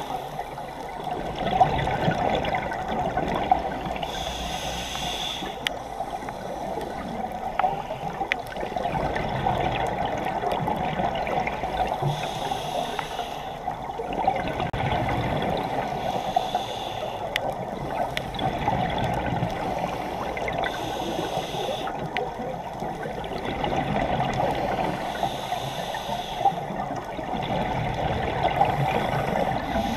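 Underwater scuba sound: a diver's regulator breathing, with bursts of exhaled bubbles about every four seconds over a steady water hiss.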